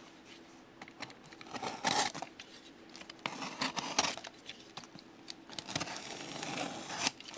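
Packaging being handled: irregular rustling, crinkling and tearing of paper or plastic wrapping.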